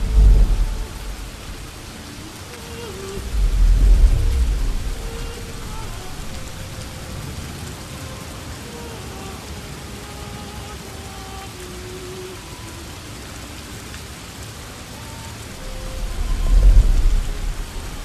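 Steady rain with three low thunder rumbles that swell and fade: one right at the start, one about four seconds in and one near the end. Faint drawn-out tones sound between the rumbles.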